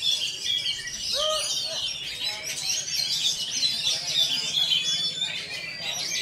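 Caged oriental magpie-robins (kacer) singing at a song contest: a dense, overlapping stream of quick whistles, trills and chatter.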